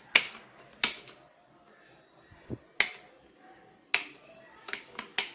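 A series of sharp clicks and knocks, unevenly spaced, about eight of them, from hard objects striking.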